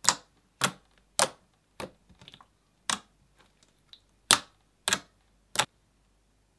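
Glossy chocolate-brown slime being poked and squeezed by fingers, giving about eight sharp, wet pops at uneven intervals, with a few small crackles in between.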